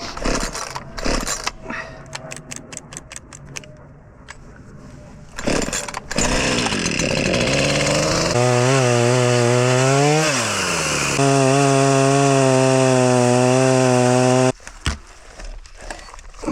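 Scattered knocks and rattles, then a small engine running loud and steady at high revs. Its pitch dips and recovers once midway, and it cuts off suddenly.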